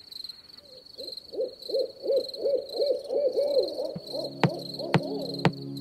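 Nature ambience: steady high insect chirping, with a run of about ten short, arched low calls repeated about three times a second. About four seconds in, music comes in with held low notes and a sharp click about twice a second.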